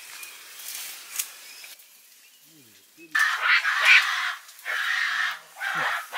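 Leafy undergrowth rustling and tearing close by in loud bursts starting about three seconds in, as a mountain gorilla pulls at the plants.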